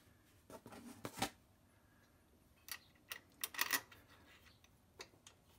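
Small metal clicks and clinks of bolts being handled and started into an engine case cover, in a few short scattered clusters, the busiest about three and a half seconds in.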